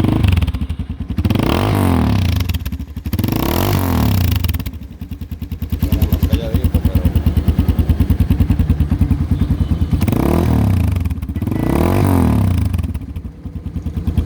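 Supergato XRF250 motorcycle engine idling and revved four times, in two pairs of quick throttle blips that rise and fall. It runs through a modified exhaust with the silencer fitted but its small inner cap removed.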